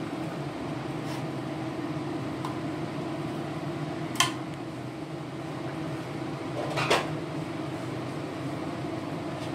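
Large stainless-steel pot of pork trotter soup simmering on a hob, over a steady electric hum of the cooker or kitchen fan. Two short sharp clicks, about four and seven seconds in, stand out above it.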